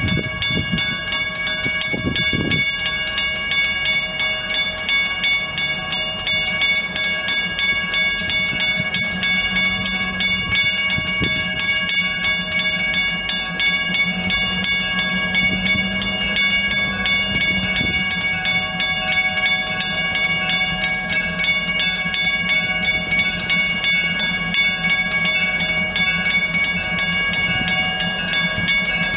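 Diesel locomotive's bell ringing continuously with rapid repeated strikes as the locomotive approaches slowly, its diesel engine running low underneath.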